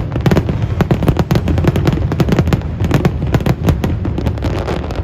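Fireworks display: shells bursting in rapid succession, a dense run of sharp bangs and cracks, several a second, over a continuous low rumble.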